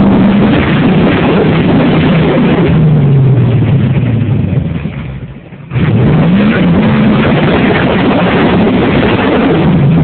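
1987 Jeep Wrangler YJ's 5.7 Vortec V8 revved hard under load on a rock climb, the revs gliding up and down. About five seconds in the revs fall away briefly, then jump back up and hold high. The high revs come from the open differentials letting the wheels spin on the damp rock instead of gaining grip.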